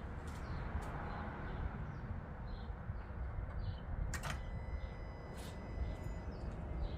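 Outdoor background rumble with faint high chirps and a few sharp clicks, the loudest about four seconds in.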